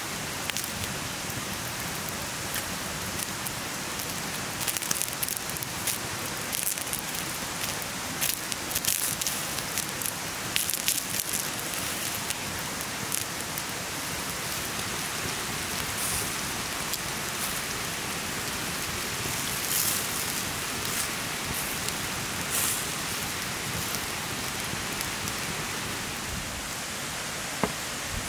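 Chicken and vegetable skewers sizzling over hot coals: a steady hiss with scattered crackles and pops.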